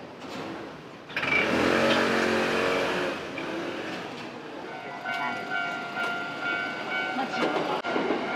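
Railway level-crossing warning bell beside the tracks starting to ring about five seconds in, a steady repeating two-tone clang. It comes after a sudden loud rush with a low drone from about one to three seconds in, typical of a train.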